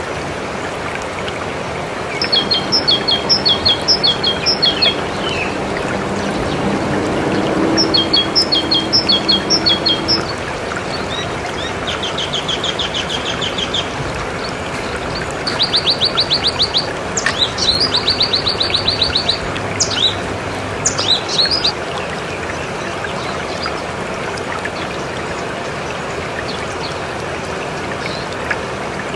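Songbirds singing short phrases of quick repeated high notes and fast trills over the steady rush of running water, like a stream. The birdsong stops about three-quarters of the way through, leaving only the water.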